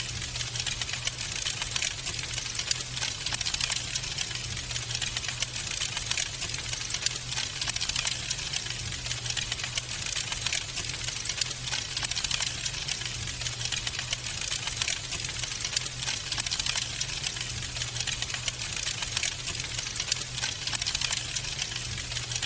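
Wood fire crackling in a fireplace: a dense, unbroken patter of small pops and snaps, over a steady low hum.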